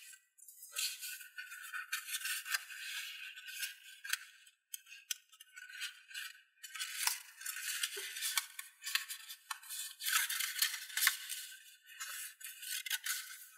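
Origami paper rustling and crinkling as hands fold and crease it, in irregular crackly bursts with a few brief pauses.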